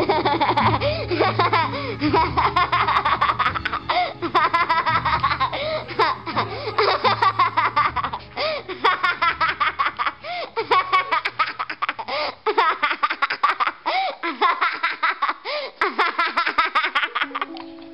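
High-pitched laughter in fast, repeated bursts over background music. The music's low bass drops out about thirteen seconds in, leaving the laughter on its own until new steady music tones come in near the end.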